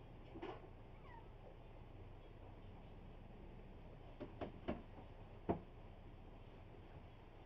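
A cat meowing near the start, one faint call falling in pitch. A few seconds later come four short sharp knocks, the last one the loudest, over a faint low hum.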